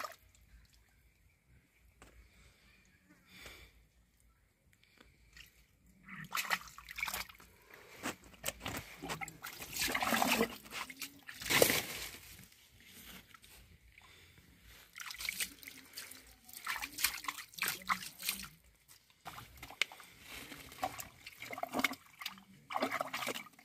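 Hands sloshing and groping through shallow muddy water and wet mud, with irregular splashes and squelches starting about six seconds in and a brief lull near the end.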